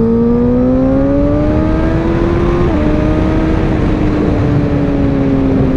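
Honda CBR1000RR inline-four engine pulling under acceleration with heavy wind rush. The engine note rises steadily, drops suddenly by a small step about two and a half seconds in, then falls slowly.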